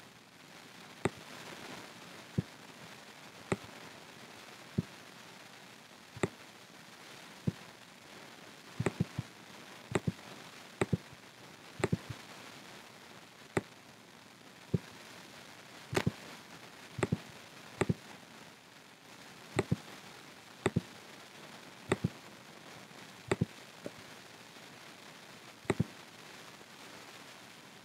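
Computer mouse clicking at an irregular pace of about one click a second, some clicks coming in quick pairs, as polygons are selected one by one in 3D modelling software. A faint steady hiss lies underneath.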